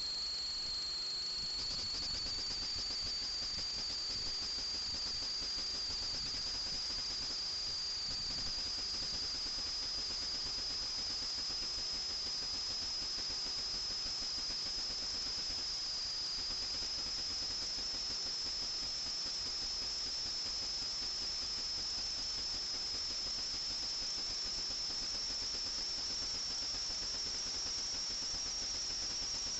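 FPV quadcopter's brushless motors whining steadily at a high pitch over a hiss, the pitch creeping slowly upward.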